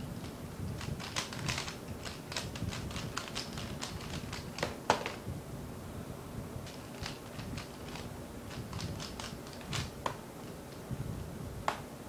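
A Dayan Zhanchi 3x3 speedcube being turned very fast in a speedsolve: a dense run of sharp plastic clicks that ends about five seconds in with a loud knock as the solve finishes. After a short pause, more quick runs of turning clicks follow.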